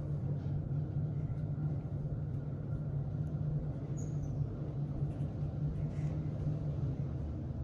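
Otis SkyRise traction elevator car travelling up through the floors at speed, heard from inside the cab as a steady low rumble.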